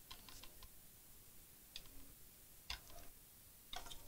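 Faint clicks and light knocks of a circuit board being handled and turned over on a workbench: a short cluster at the start, single ticks near the middle, and another cluster near the end.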